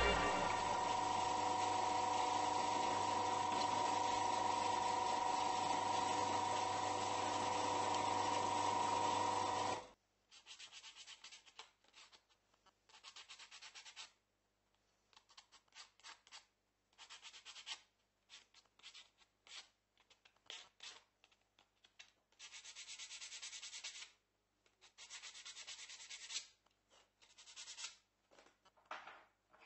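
A steady hum with a held whining tone for about ten seconds, then it cuts off suddenly. After that, a small wooden block is scraped and slid across a wooden table top in short, uneven strokes.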